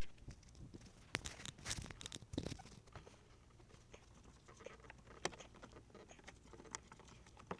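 Faint, scattered clicks, scrapes and rustles of a wiring plug and cable being handled and pulled through behind car panels.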